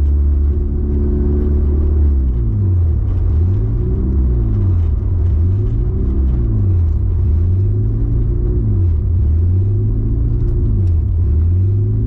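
Honda Civic engine breathing through Skunk2 Alpha Series headers, heard inside the cabin while cruising at steady throttle: a loud, steady low drone that from about two seconds in wavers up and down in pitch over and over.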